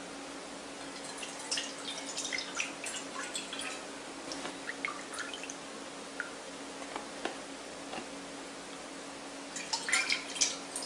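Milk poured from a carton into a porcelain teacup, trickling and splashing in spells with a few stray drips. Near the end the cupful of milk is poured into a stainless steel bowl, the loudest splashing.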